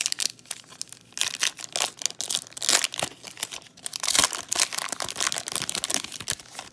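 A trading card pack wrapper crinkling and being torn open, a dense, irregular run of crackles and rips.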